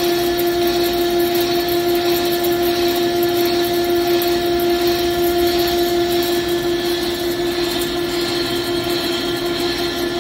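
Heavy CNC lathe turning alloy cast steel in a steady, unbroken cut: a constant tone over even machining noise.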